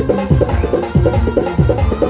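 Live band music with a steady driving beat: drum kit and electronic percussion pad played with sticks, deep drum hits dropping in pitch about three times a second over keyboard and guitar.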